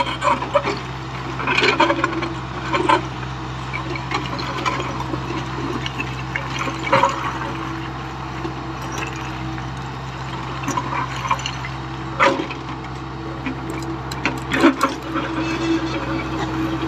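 JCB JS81 excavator's diesel engine running steadily while it works, with a whine that grows stronger near the end. Scattered knocks and clatter of broken concrete and stones being shifted by the bucket.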